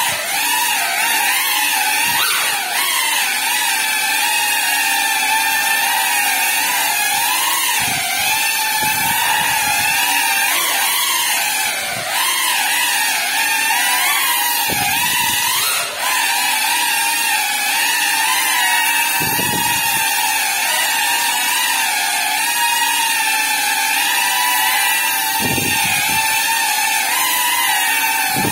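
Small GEPRC FPV quadcopter's motors and propellers whining, the pitch rising and falling continually as the throttle changes through quick manoeuvres. A few brief low rumbles break in along the way.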